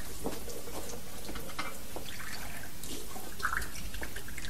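Water splashing and dripping in a washbasin as hands are washed under the tap, with scattered small drips over a steady background hiss.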